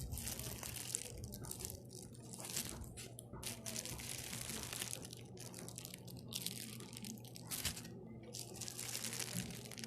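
ASMR of a squishy toy being squeezed and handled up close: irregular bursts of scrunching, rustling noise, one or two a second, over a faint steady low hum.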